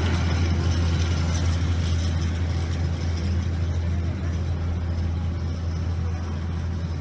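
Fire engine's motor running at a steady speed: a continuous low rumble with a hiss over it, easing slightly in loudness.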